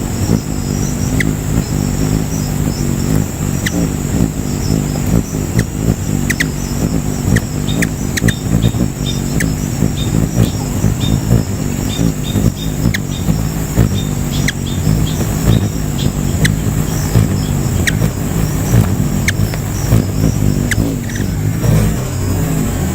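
Hummingbird wings humming close by as it hovers, a continuous low fluttering hum, with short high chirps every second or so.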